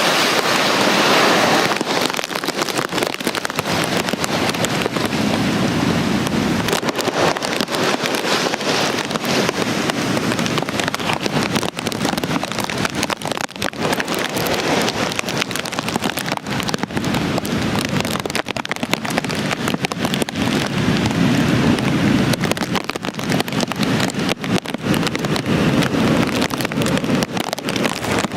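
Hurricane wind and heavy rain, a loud steady rush that swells and eases in gusts, with wind buffeting the microphone and rain spattering on it.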